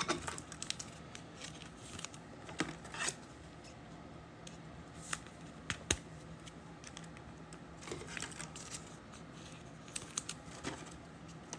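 Faint, scattered clicks and soft rustles of trading-card packs and cards being handled, with a few sharper ticks spread through.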